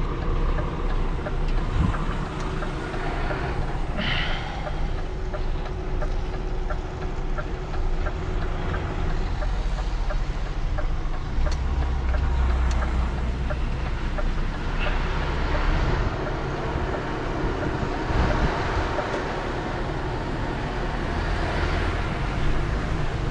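Heavy recovery truck's diesel engine running with road noise, heard from inside the cab while it tows a loaded dustcart: a steady low rumble.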